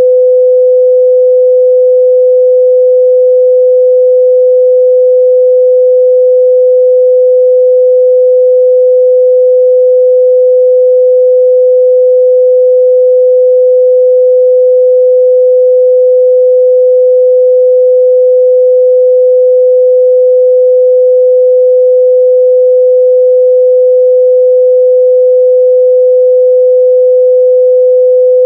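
Steady, loud pure sine-wave test tone at 505 Hz, a single unchanging pitch with no other sound.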